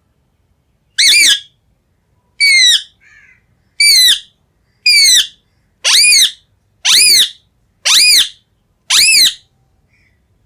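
Green parrot giving a series of eight loud, harsh squawks, each rising then falling in pitch, about one a second.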